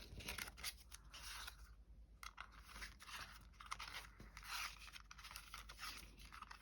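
Faint, irregular rustling and scraping of card stock being handled and threaded onto a silver metal binder ring.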